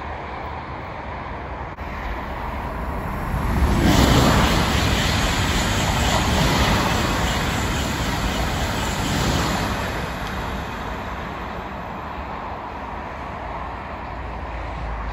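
Double TGV high-speed train, two coupled sets, passing at speed: a rush of wheels and air that swells, peaks sharply about four seconds in, holds for several seconds as the coaches go by, then fades away.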